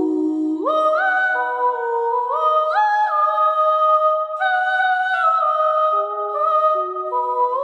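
Sampled vocal lead from a virtual-instrument library singing a slow melody of held notes that slide from one pitch to the next. It runs through a Fairchild 670 compressor emulation driven hard at the input, which holds the level even and colours the tone, with the high end filtered off.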